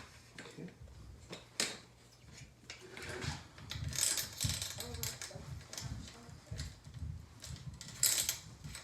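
Metal clicks and rattles from a BMX rear wheel and chain being handled as the wheel is fitted back into the frame.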